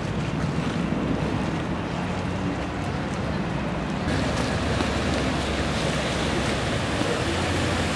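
Wind buffeting the microphone over a steady rush of outdoor noise; about four seconds in, the noise steps up and turns brighter.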